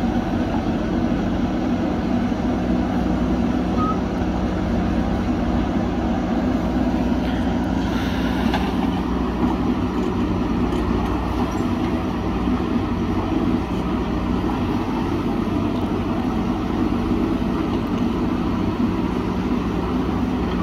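Diesel engines of backhoe loaders and dump trucks running together in a steady, continuous drone as the backhoes dig and load soil. A brief rushing noise comes about eight seconds in.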